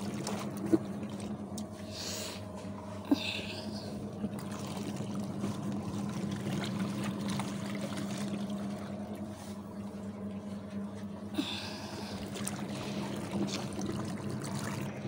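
Twin-tub washing machine running with a steady motor hum, with water splashing now and then and a few light knocks.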